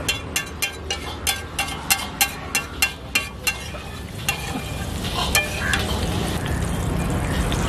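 Metal spatula striking and scraping a flat iron tawa, about three quick taps a second for the first three seconds or so, then a few scattered taps, over the sizzle of an egg frying in oil.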